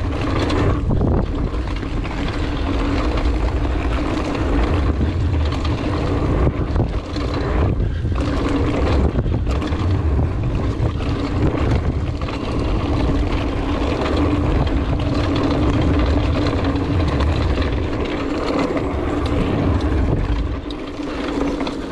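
Wind buffeting a chest-mounted action camera's microphone and the tyres of a 2019 Trek Roscoe 8 hardtail mountain bike rolling fast over a dirt trail, a loud, continuous rumble with a steady hum running through it. It eases slightly near the end.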